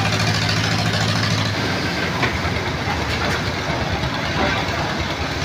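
Concrete mixer machine running, its engine giving a steady hum with a clattering rattle; about a second and a half in the hum turns into a rougher, noisier rumble.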